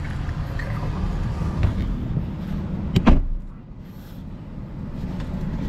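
Car's driver door shutting with a single loud thump about three seconds in. Before the thump a steady low rumble comes in through the open door; it falls away once the door is shut.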